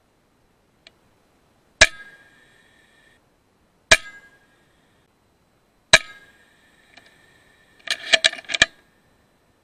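Three shots from an FX Impact M3 .22 PCP air rifle, about two seconds apart, each a sharp crack followed by a short metallic ring. Near the end comes a quick run of five or six sharp metallic clicks.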